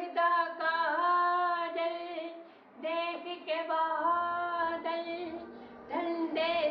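A woman's voice singing a slow melody in long held notes, a second or two each, with brief breaks between phrases and little or no accompaniment.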